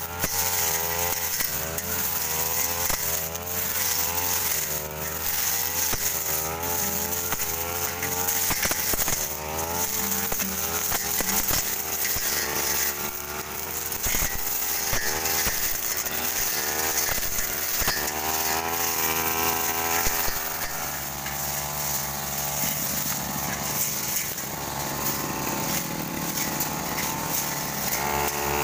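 Backpack brush cutter engine running at high speed as the blade slashes through weeds and ferns. Its pitch wavers up and down continually, with frequent sharp ticks from the blade striking the undergrowth.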